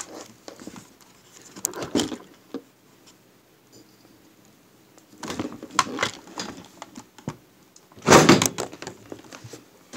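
Knocks and clattering from things being handled and moved around, in scattered short bursts, the loudest a clatter about eight seconds in.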